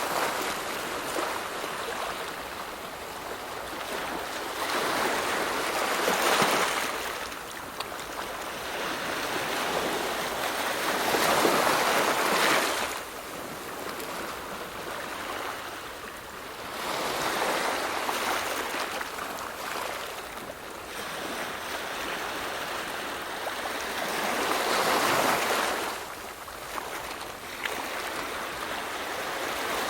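Waves breaking and washing in: a rushing noise that swells and ebbs every several seconds.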